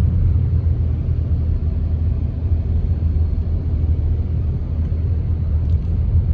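Steady low rumble, like a motor vehicle running or driving, with no sharp events.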